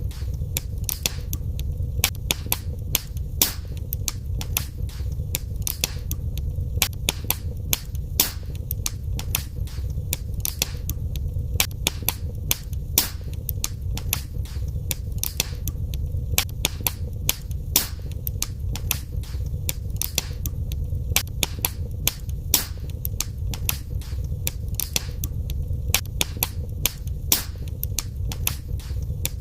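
Wood fire in a fireplace crackling, with frequent sharp irregular pops over a steady low rumble of the flames.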